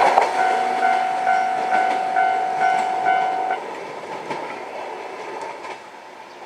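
Japanese level-crossing warning bell ringing about twice a second and stopping about three and a half seconds in, over the fading running noise of a departing 103 series electric train.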